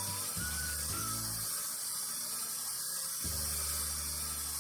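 A steady hiss over soft background music with low bass notes.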